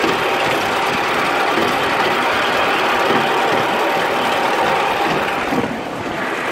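Miniature live-steam locomotive, a Polly 2, running along the track, with a steady mechanical clatter of its exhaust and wheels on the rails heard from right behind it.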